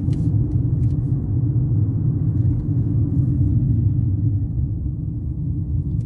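Steady low rumble of road and engine noise inside a moving car's cabin, with two faint clicks in the first second.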